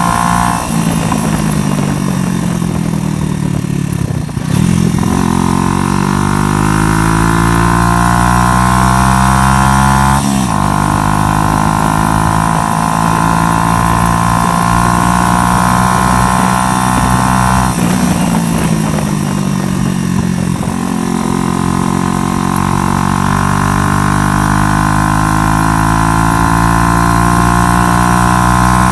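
Snakemotors 125cc motorcycle engine under way, its pitch climbing steadily and then dropping sharply at four gear changes as the bike accelerates up through the gears.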